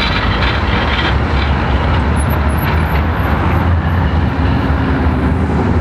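City street traffic: a tram running along its street track and a car driving past close by, over a steady low rumble, with a few light clicks in the first second or so.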